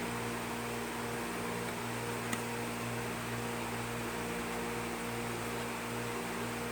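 Steady electrical mains hum with background hiss, and one faint click about two seconds in.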